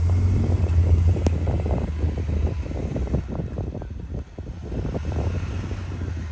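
Jeep engine running with a strong low rumble that eases after about two and a half seconds, amid irregular knocks and crunches as it works over the snowy trail; one sharp click about a second in.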